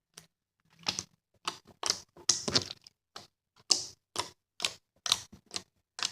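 Jiggly clear water slime being squeezed and stretched in the hands, making a run of sharp wet clicks and pops from trapped air, irregular at about two or three a second.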